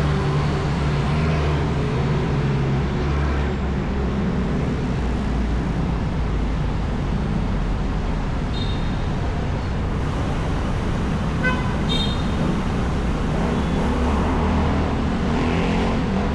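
Steady city street traffic: car and bus engines running and tyres on the road. A short vehicle horn toot sounds about three-quarters of the way through.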